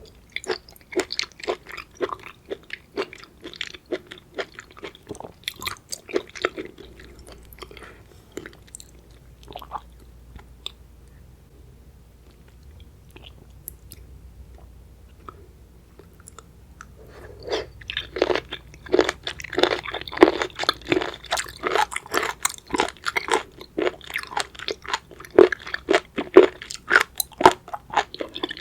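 Close-miked eating of raw seafood: wet chewing and crunching bites. There is a run of chewing at first, a quiet pause with only a few faint mouth sounds, then denser, louder crunching from a little over halfway through.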